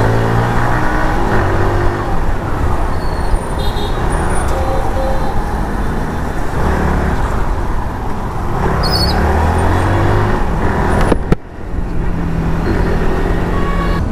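Motorcycle engine heard from the rider's seat while riding, its pitch rising and falling again and again as it revs up and eases off, over a steady rush of wind noise. The sound briefly drops away about eleven seconds in.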